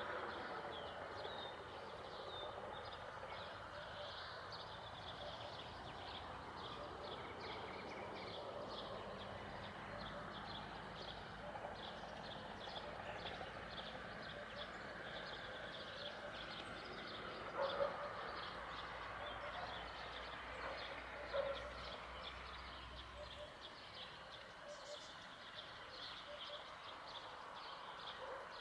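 Rural outdoor ambience: a dense layer of rapid, high-pitched chirping from small creatures, with a few louder short calls now and then. A faint low hum comes in after about nine seconds and fades out past the twenty-second mark.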